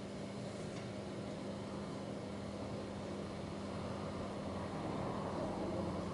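Steady mechanical hum at one low pitch over a constant hiss, growing slightly louder near the end.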